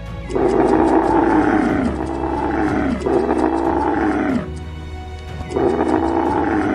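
A large animal giving long, pitched calls, four in a row, each falling in pitch as it ends, over steady background music.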